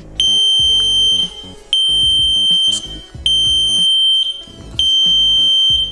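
Warning beeper of an Audi A6 (4B) instrument cluster, powered up for a function check, giving four very loud, high, single-pitched beeps of about a second each, one every one and a half seconds.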